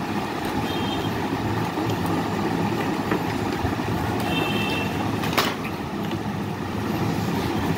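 Orange colour pencil shading on tracing paper, a steady rapid scratching of the lead over the sheet.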